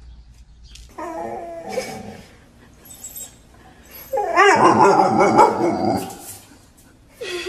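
Dog whining and yelping in wavering, pitched cries: a short run about a second in, then a louder, longer one about four seconds in that lasts nearly two seconds.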